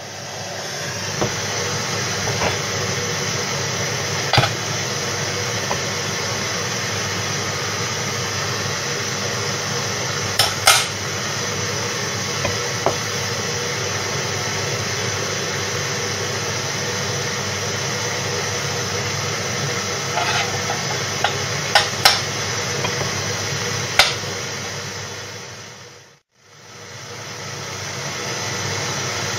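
Steady rushing hiss, with sharp metallic clicks and taps now and then as the steel connecting rod, bronze bush and pin are handled on a steel plate.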